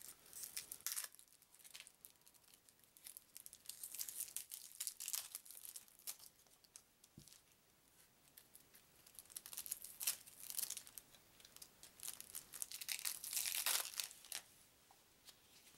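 Thin plastic wrapping being torn and crinkled off a stack of game cards, in short, scratchy, intermittent bursts.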